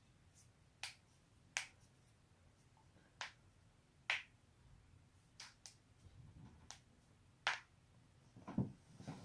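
Neck joints cracking: about ten sharp pops at irregular intervals, the last couple near the end duller with a lower crunch.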